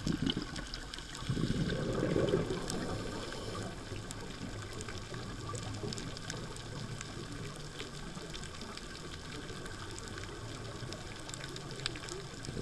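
Scuba diver's exhaled bubbles, heard underwater through a camera housing: a loud bubbly gush about a second in that lasts around two seconds, then a steady low underwater hiss with faint scattered clicks.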